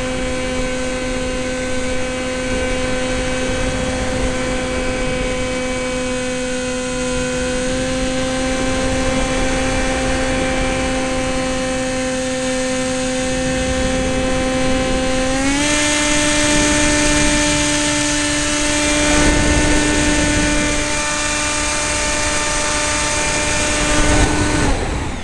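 Sky Surfer RC plane's electric motor and propeller whining steadily under a rush of air. The pitch steps up a little about two-thirds of the way in, and the whine cuts off just before the end.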